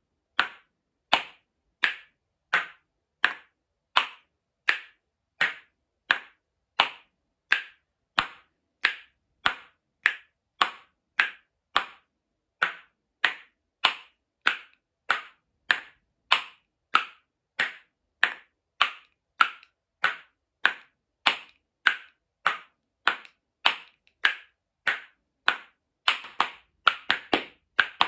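A pair of painted wooden spoons held back to back, clacked together in a slow even beat of about one and a half clacks a second. Near the end the clacks come faster, in quick runs.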